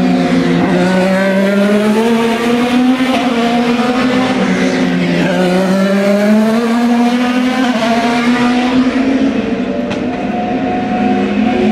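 IndyCar race cars' twin-turbo V6 engines at high revs as several cars pass one after another through a corner. The engine pitch keeps falling and rising as the cars slow into the turn and accelerate out.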